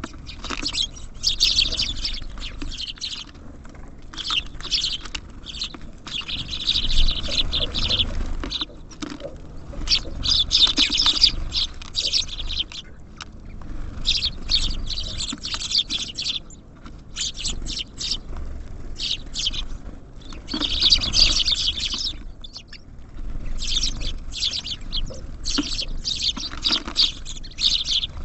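Small songbirds at a feeder chirping in repeated clusters of short, high calls, with light clicking and pattering from birds moving on the feeder.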